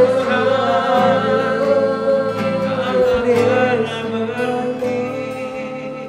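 Worship music: a singer holds a long note over the band's accompaniment, gradually fading toward the end.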